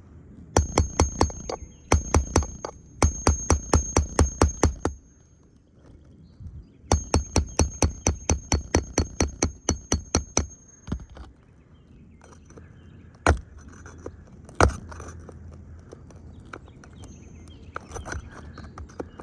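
Nails being driven into roof shingles in quick runs of sharp strikes, about four a second. Three short bursts come first, then a longer run. After that come a couple of single loud knocks and some lighter scraping and tapping.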